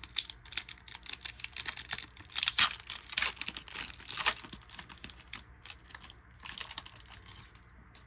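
Pokémon trading cards being handled and shuffled: a run of quick clicks and rustles, thickest in the first half and thinning out near the end.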